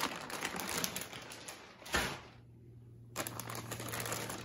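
Clear plastic parts bags crinkling and rustling as they are handled in a cardboard box, with a soft thump about two seconds in, a brief lull, then more rustling.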